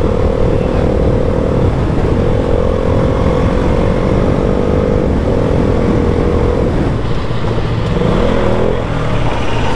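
KTM RC200's single-cylinder engine running at highway speed under heavy wind rush on the helmet microphone. The engine note holds steady, breaks off briefly twice, then wavers and falls away in the last few seconds as the bike slows.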